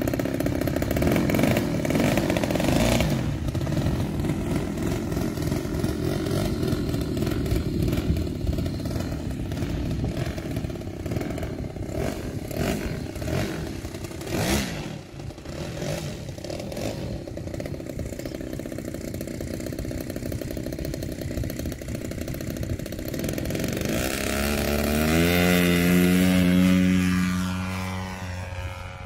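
Engine of an RC aerobatic model airplane running, with a clattering edge. Near the end the model flies past low: its engine note swells to its loudest, then slides down in pitch as it goes by.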